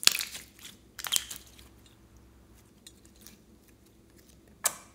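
Slime being squished by hand, crackling and squelching: two bursts in the first second and a half, a few faint clicks, then one short sharp pop near the end.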